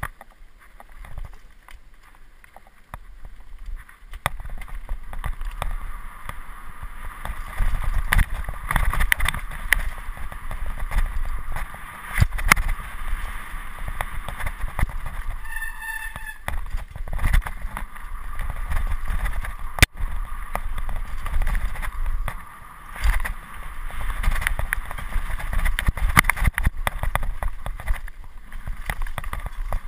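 Mountain bike riding fast down a rough dirt trail, picked up by a camera on the handlebar: a steady low rumble of wind and tyres on the ground, with constant rattling clicks and knocks as the bike goes over rocks and bumps. A brief high squeal sounds about 16 seconds in.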